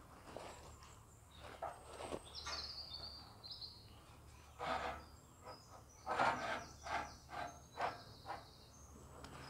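Faint knocks and scrapes of wooden battens being shifted and set on a metal trailer frame, a cluster of them about halfway through. Birds chirp in the background.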